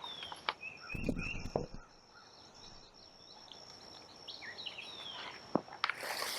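Small birds chirping and whistling in woodland over a steady thin high-pitched tone. There is a brief low muffled bump about a second in, and a rustle starts near the end.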